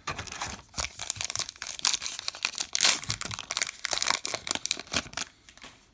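A baseball card pack's wrapper is crinkled and torn open, a dense run of irregular crackling for about five seconds that stops shortly before the end.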